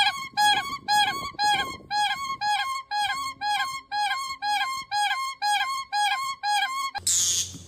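A bird repeating a pitched, whistle-like two-note call, about two notes a second, alternating lower and higher. A short hissy burst ends it about seven seconds in.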